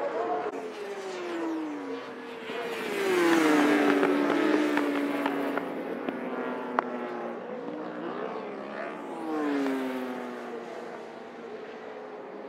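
Superbike-class endurance racing motorcycles passing one after another at high revs, each engine's pitch dropping as it goes by; the loudest pass comes about three seconds in. A single sharp click sounds a little before seven seconds.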